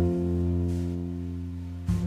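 Instrumental background music: held notes slowly fading, with a new low note struck near the end.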